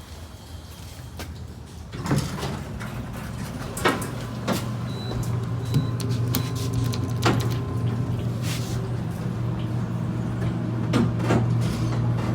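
Hydraulic elevator in operation: a steady low hum comes on about two seconds in and keeps running, with clicks and knocks of the doors and machinery scattered through it.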